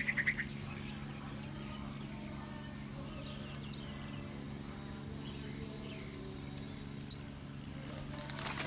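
Small birds calling outdoors: a quick run of about four chirps at the start, then two single sharp chirps, one near the middle and one near the end, over a steady low hum.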